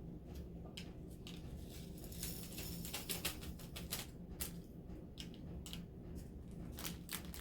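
Round resin diamond-painting drills clicking and pattering as they are poured and shaken, in irregular bursts of small clicks.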